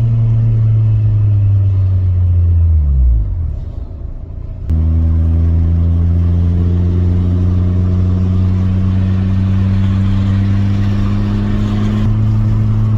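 Swapped-in Honda B16A four-cylinder engine of a 1991 Civic hatchback under way: the engine note falls away about three seconds in, drops quieter for a moment, then comes back suddenly and climbs slowly as the car accelerates.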